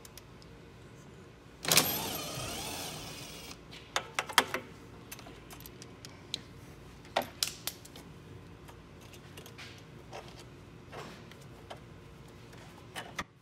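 Small metal parts of a snowmobile's recoil starter clicking and rattling as the pull-rope pulley is worked off its bracket by gloved hands. A louder sound starts suddenly about two seconds in and fades over the next two seconds, followed by scattered sharp clicks.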